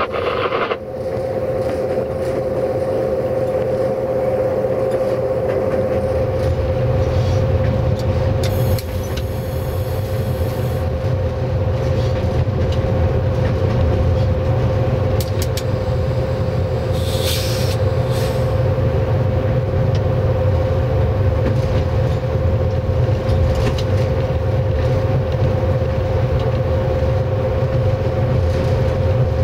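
060-EA electric locomotive running under power, heard in the cab: a steady humming tone over a low rumble. Two short hisses come about nine and seventeen seconds in.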